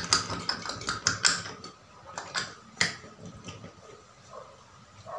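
Plastic lotion bottle being opened and squeezed: a quick run of sharp clicks and crackles from the cap and the plastic, busiest in the first second and a half, with one more sharp click near three seconds.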